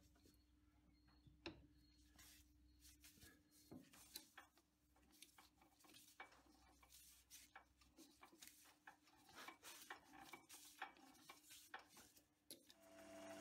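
Faint, scattered small clicks and taps of hands setting a Delrin workpiece in a stopped metal lathe's chuck against the tailstock centre, over a low steady hum. Near the end the lathe motor starts up.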